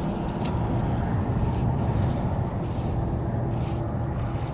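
Steady low rumble of wind on the microphone over open water, with several short splashy hisses as a gurgler topwater fly is stripped in and spits water at the surface.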